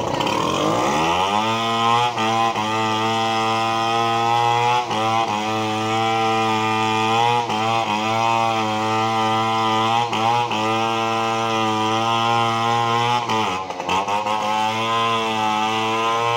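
A chainsaw running at high revs as it cuts through a fallen tree trunk. It revs up in the first second or so, then holds a steady high drone whose pitch sags briefly every few seconds as the chain bites into the wood. Near the end it drops off for a moment and revs back up.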